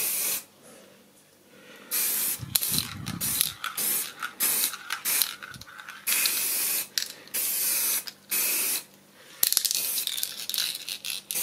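Aerosol spray-paint can spraying in repeated bursts, from short puffs to passes of a second or two, with brief pauses between.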